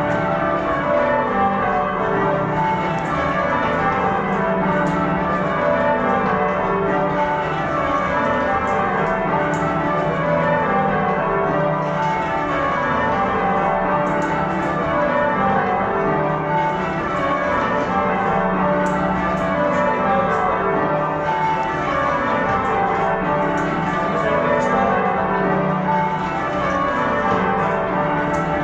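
A ring of ten church bells, tenor 19-3-15 cwt in D, rung full-circle in changes, heard from the ringing chamber below. The strokes follow one another in a steady, even stream, each row stepping down the scale from treble to tenor.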